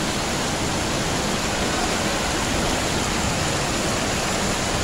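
Storm floodwater rushing down a street as a fast, churning torrent: a steady, unbroken rush of water.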